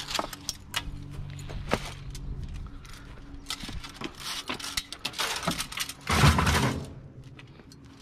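Aluminium blinds being handled and loaded into a mesh cage trailer: scattered light clicks and knocks, stretches of scraping, and a louder clattering scrape about six seconds in.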